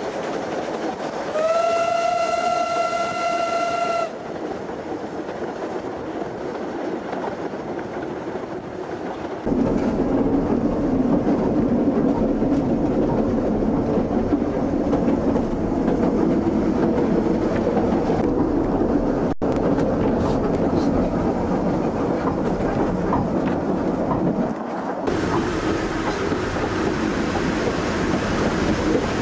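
A narrow-gauge steam locomotive's whistle sounds once for about two and a half seconds. The steady running noise of the train follows, turning deeper and louder about nine seconds in.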